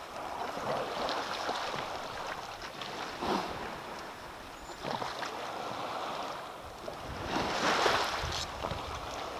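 Shallow seawater sloshing and lapping around a hand holding a sea trout in the water to revive it before release, with a few short splashes, the loudest about eight seconds in.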